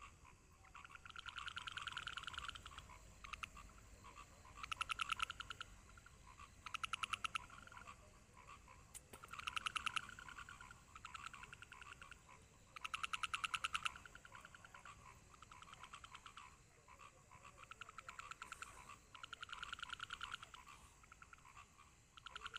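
Frogs calling faintly: trains of rapid pulsed croaks about a second long, repeating every two to three seconds.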